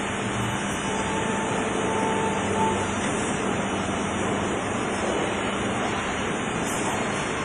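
TBT BWW 250 CNC deep-hole boring machine running: a steady mechanical hum and whir. A faint high whine drops out about a third of the way in.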